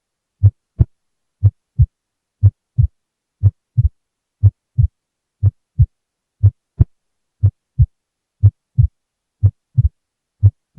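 Human heart sounds heard through a stethoscope: a pair of low beats (first and second heart sounds) about once a second. The second sound is split into two close clicks at some beats and single at others: a normal, physiologically split second heart sound that widens with inspiration.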